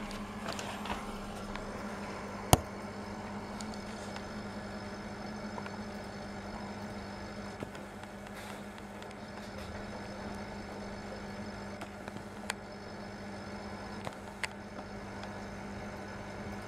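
Aquarium air pump running with a steady electric hum. A single sharp click comes about two and a half seconds in, and a few faint ticks follow later.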